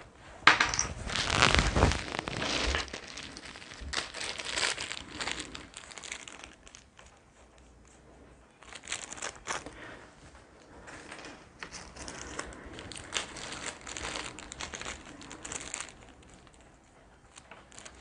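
Board game packaging and cardboard components being handled, crinkling and rustling in irregular bursts, loudest in the first few seconds.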